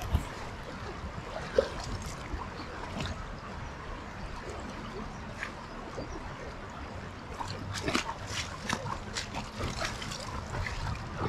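River water running steadily, with a few sharp clicks near the start and a flurry of short splashy noises about eight to ten seconds in.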